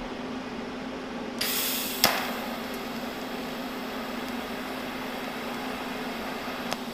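TIG welding torch striking an arc on steel: a short bright hiss about a second and a half in, a sharp snap, then the arc's quiet steady hiss, with a faint click near the end. A low steady hum runs underneath.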